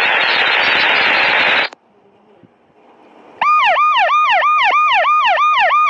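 Loud radio static hiss that cuts off suddenly after about a second and a half. After a short quiet gap it is followed by a police-style yelp siren sound effect, rapidly rising and falling in pitch about three times a second.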